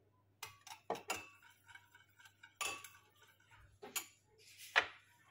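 A spoon and spice containers clinking and tapping against a bowl while spices are added to a sauce: about six short knocks and clinks, a few ringing briefly.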